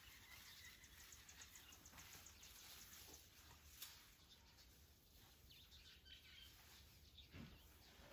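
Near silence: faint outdoor ambience with a low hum, a few faint bird chirps, and a soft click about halfway through.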